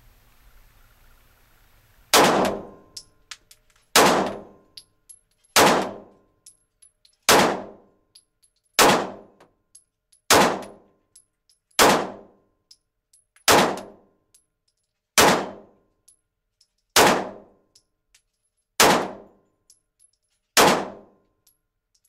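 Glock 19 9mm pistol fired twelve times at a steady pace, starting about two seconds in, roughly one shot every second and a half. Each shot has a short echo off the walls of the indoor range.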